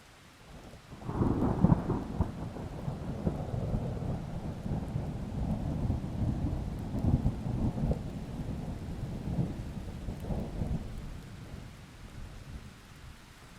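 A long roll of thunder over steady rain: it breaks in suddenly about a second in, loudest at the start, then rumbles on in swells and fades away over about ten seconds.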